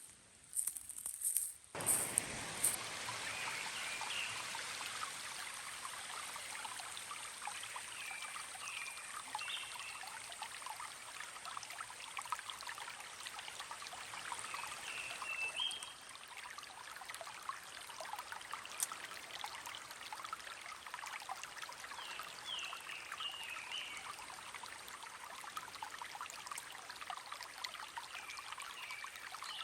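Mountain stream water running steadily over rocks, starting suddenly about two seconds in after a few clicks.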